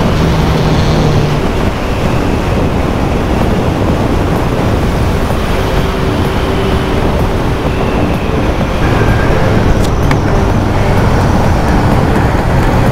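Honda CBF600 inline-four motorcycle riding at road speed: steady wind rush over the rider with the engine running underneath. A lower, steadier engine note comes through in the last few seconds.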